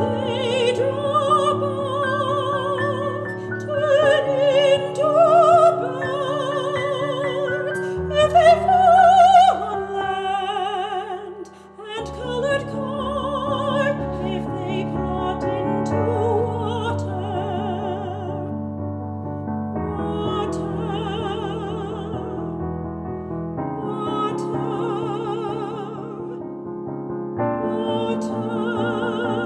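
Classical soprano singing an art song with vibrato over piano accompaniment, with a short lull about eleven seconds in.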